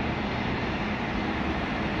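Boeing 747-400 freighter's four jet engines at takeoff power during its takeoff roll: a steady, even noise with a faint hum in it.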